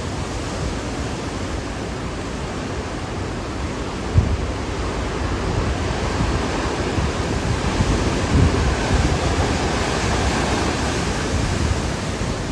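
Strong hurricane wind rushing steadily and buffeting the microphone in gusts, with a brief thump about four seconds in.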